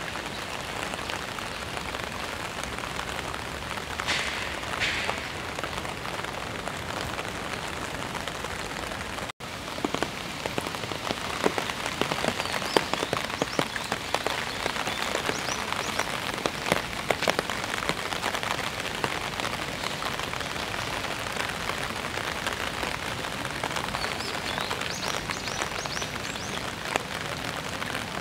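Steady rain falling on paving and trees, with many separate drops ticking sharply close by. The sound cuts out for an instant about nine seconds in.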